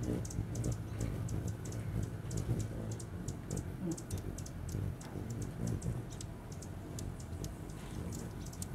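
Hummingbirds giving sharp chip calls while they feed, heard as a rapid, irregular run of high ticks, several a second, over a low rumble.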